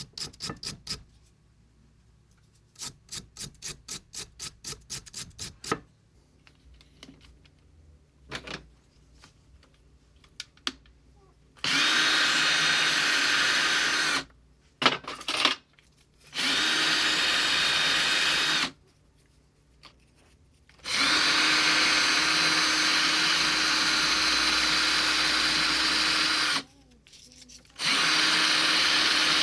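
A handheld power drill runs at steady speed in four bursts of about two to six seconds, starting and stopping abruptly, during work on bicycle crank bolts. The first few seconds hold rapid rhythmic scrubbing strokes, about four a second.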